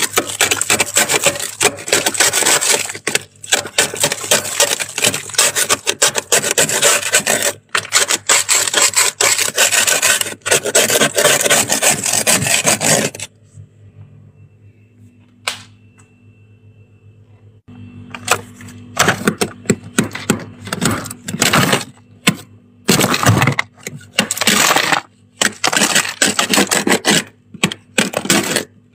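Thick freezer frost being scraped off the inside wall: continuous rasping scraping for about thirteen seconds, a pause of some five seconds with a single click, then shorter scraping strokes starting again.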